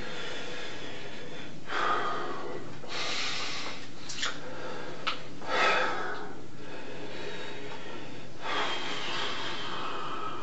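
A man breathing heavily, with about four loud, noisy breaths a couple of seconds apart, over the steady hiss of the recording.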